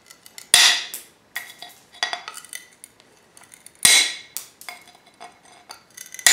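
Tile nippers chipping small pieces off the edge of a tile to cut a notch: a sharp crack about every three seconds, with lighter clicks in between.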